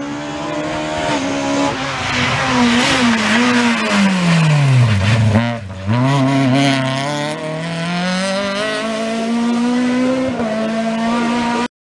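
Rally car engine at stage pace. The engine note drops to its lowest about five seconds in as the car slows for a corner, then climbs steadily as it accelerates away.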